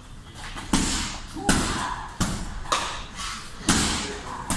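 Punches landing on a hanging heavy punching bag: about six solid thuds at an uneven pace, each with a short echoing tail.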